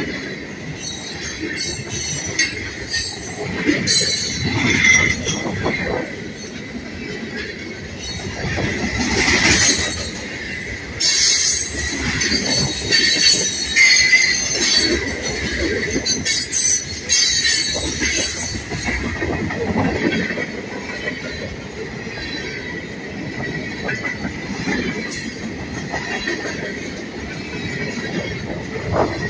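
Freight cars of a CSX train rolling past close by: a steady rumble and clatter of wheels on rail, with a continuous high-pitched wheel squeal that swells louder several times.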